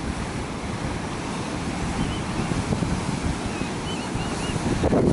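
Ocean surf washing on the beach, with wind buffeting the microphone in gusts. A few faint high chirps come through over it.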